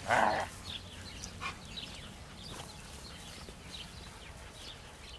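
Siberian huskies playing: one short, loud dog vocalization right at the start, then soft scuffling and rustling as they move about on dry grass.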